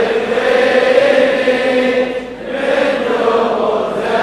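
Many men's voices chanting together in unison, a sung Shia Muharram lament (latmiya), with a brief dip about two and a half seconds in.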